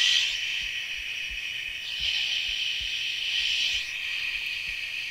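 A man's long, steady 'shh' hiss, held without a break. Its tone shifts as his flat hands pass in front of his face and away again, brighter for a couple of seconds in the middle. The change comes from the sound reflecting off his hands, the cue used in echolocation.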